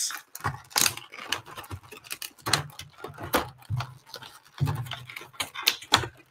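Clear plastic action-figure packaging crinkling and rustling as it is handled and opened, in irregular crackles with a few soft knocks.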